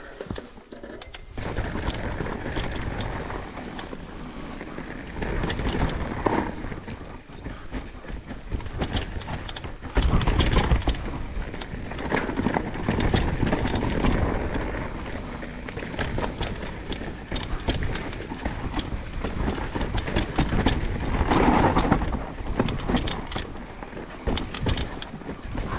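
Mountain bike riding down a dirt downhill trail: tyre noise over dirt and rocks with many sharp rattling knocks and clicks from the bike, and a heavy low rumble starting about ten seconds in.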